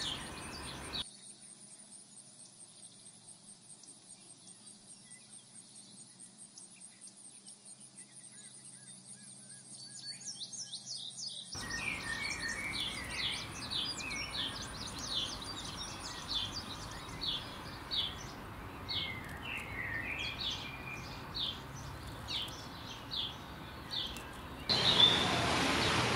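Outdoor nature ambience of birds chirping in many short repeated calls, with a high, steady pulsing insect trill through the first half. Near the end it switches abruptly to a louder steady rushing noise.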